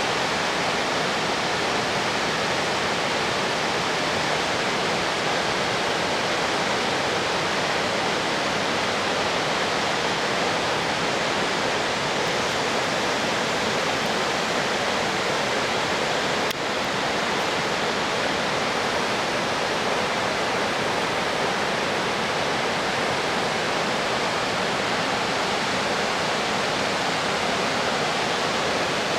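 Steady rush of water from the Ausable River pouring through its rocky gorge.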